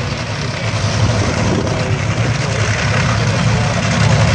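Drag-racing engine running steadily at idle, loud and unchanging, over a constant background noise.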